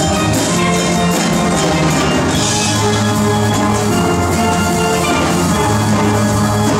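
A steel pan ensemble playing: many steel pans struck with mallets, with fast ringing melody notes above and the bass pans holding low notes beneath.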